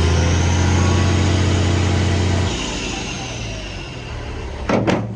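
An engine running steadily, easing off about two and a half seconds in, with a short sharp knock near the end.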